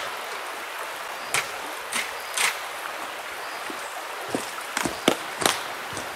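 Rain: a steady hiss with several louder, irregular drops tapping a hard surface.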